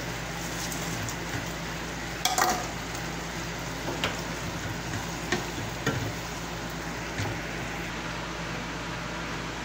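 Sweet and sour sauce sizzling in a nonstick frying pan as fried chicken pieces are tipped in and stirred with a wooden spatula. A cluster of knocks comes a little over two seconds in, then scattered single knocks of pan and spatula.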